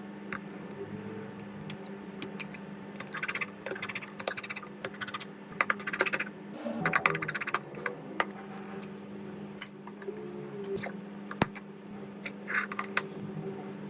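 Irregular small clicks, taps and scrapes of repair tools and iPhone XR parts being handled on a bench, in loose clusters, over a steady low hum.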